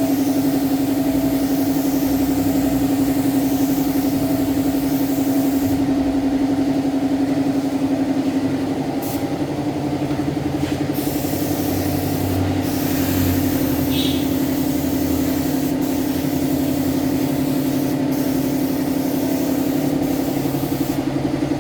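A motor running steadily with a constant droning hum, its pitch and loudness dipping slightly about nine seconds in.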